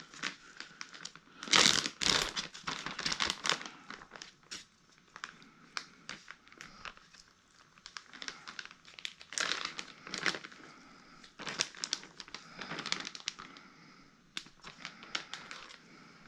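Crinkling and rustling of wrapping, likely plastic, being handled, in irregular spurts with sharp crackles. The loudest spurt comes about two seconds in, and another about ten seconds in.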